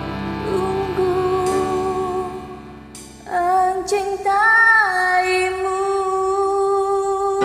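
Karaoke singing over a backing track. The music dips in loudness about two seconds in. Just after three seconds in, a voice comes in and holds one long note, bending briefly in pitch partway through.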